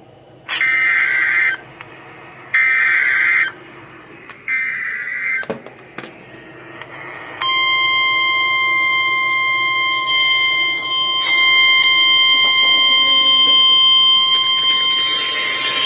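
Emergency Alert System warning signal: three one-second bursts of screechy digital data tones (the SAME header), a click, then a long, steady, piercing alert tone starting about seven seconds in. It opens a flash flood warning.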